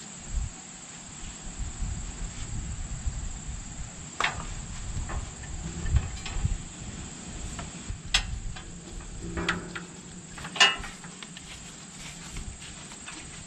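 Scattered sharp metal clicks and knocks as the hitch hardware of a grain cart is worked while it is hooked up to a tractor. The loudest knock comes about ten seconds in. A steady high thin whine runs underneath.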